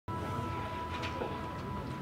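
Quiet room tone through the sanctuary's sound system: a low rumble with a thin, steady high-pitched tone held throughout.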